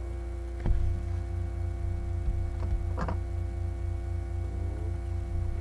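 Steady electrical mains hum in the microphone, with two knocks: a loud one about a second in and a lighter one about three seconds in. The hum grows louder after the first knock.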